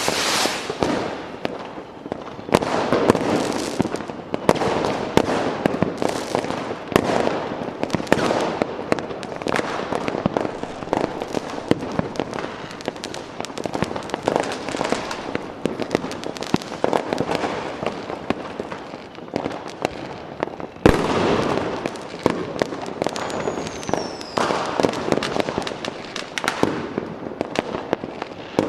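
Fireworks going off: a dense run of overlapping bangs and crackling bursts. About two-thirds of the way through comes one sharp, louder bang, followed shortly by a brief falling whistle.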